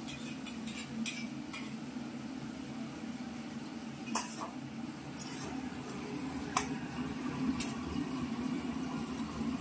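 Metal spoon clinking and scraping spice paste out of a steel container into an aluminium wok, then a spatula scraping and knocking in the wok as the onion paste and spices fry, as a string of sharp clicks over a steady low hum.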